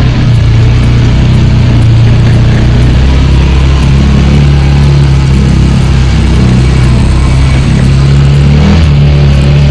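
An ATV engine running under way, its pitch shifting a couple of times as the throttle changes, with a steady rushing noise over it.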